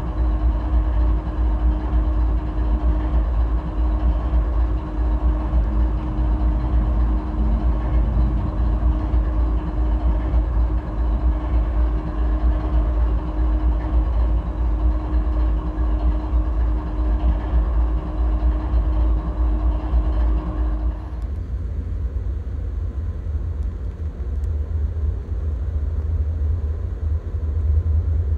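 Diesel freight train running by: a deep steady rumble with a steady hum over it. About three-quarters of the way through, the higher sounds cut out abruptly and only the low rumble is left.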